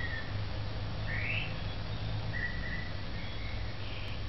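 Outdoor ambience: a few short bird chirps, one rising in pitch, over a steady low rumble.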